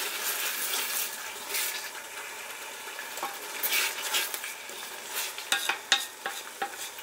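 Wooden spatula stirring a thick onion, curd and spice masala that is sizzling in a metal pot, with uneven scraping strokes against the pot, loudest near the start and about four seconds in. The masala is being fried until its oil separates.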